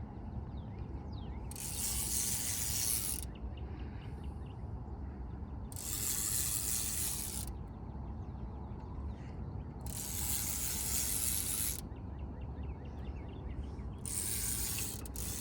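Fishing reel buzzing in four ratchet-like bursts of about one and a half to two seconds each, roughly four seconds apart, as a hooked fish is played in.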